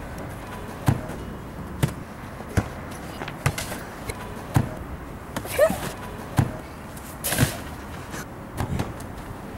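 A rubber soccer ball being kicked on artificial turf: a series of sharp taps about once a second as it is dribbled and shot. A short gliding squeak comes about halfway through.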